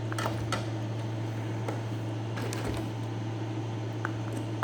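A steady low hum from an appliance or air conditioner, with a few faint clicks and taps from plastic parts being handled.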